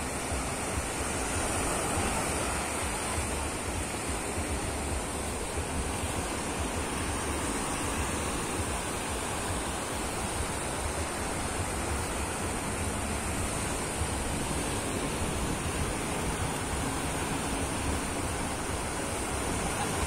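Ocean surf breaking on a sandy beach: a steady, unbroken wash of small waves rolling in and running up the sand.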